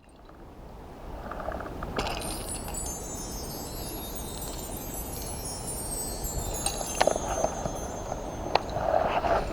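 High, shimmering chime ringing with many overlapping tones that slowly fall in pitch, over a steady rushing background, with a couple of sharp clicks near the end.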